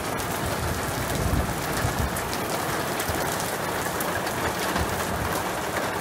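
Heavy rain pelting down on a paved patio: a steady hiss with the fine patter of drops striking wet paving slabs.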